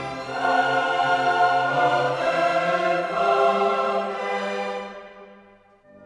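Background choral music with orchestra, sung voices holding long notes, fading out near the end.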